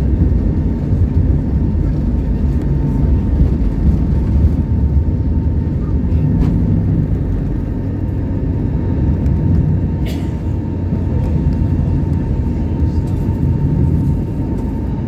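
Airbus A321neo cabin noise heard from inside the cabin: a loud, steady low rumble of the Pratt & Whitney PW1100G engines and airflow, with a thin steady tone above it. A couple of faint clicks come through about halfway.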